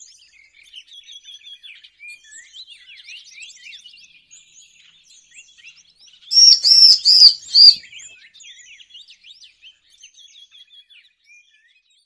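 Looped bird-lure recording of small forest songbirds (cigun, cipar and ciblek, the bar-winged prinia): a constant background of quick, thin, high twittering chirps, broken about six seconds in by a loud phrase of four strong, high notes.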